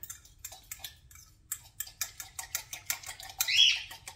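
Fork whisking liquid in a glass measuring cup, its tines clicking quickly against the glass, about four or five clicks a second. Near the end a bird squawks once, loud and short.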